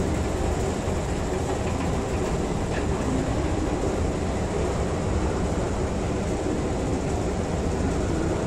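Steady low rumble and hum of an underground metro station's machinery, unchanging throughout, with a faint high hiss above it.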